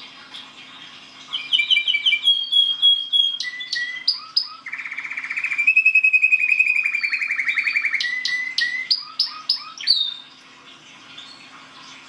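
Domestic canary singing one long song of about nine seconds: quick chirps first, then a fast rolling trill in the middle, then sharp chirps again before it stops.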